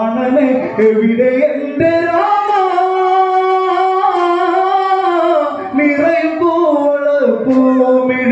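Singing of an Onamkali song in Malayalam, holding one long, slightly wavering note through the middle, with shorter sung phrases before and after it.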